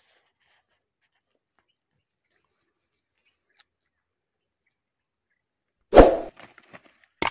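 Silence for about six seconds, then a loud, short burst and, near the end, a sharp click: the opening of a subscribe-button animation sound effect laid over the video.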